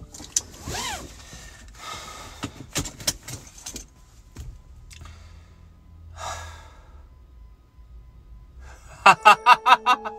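A seat belt pulled across and buckled, with rustling and several sharp clicks in the first few seconds. A short breathy, gasp-like sound comes around six seconds in. About a second before the end a man breaks into a loud, rapid staccato laugh, "fuhahahaha".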